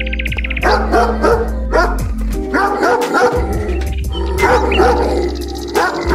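Dogs barking and yipping in several short groups over steady background music.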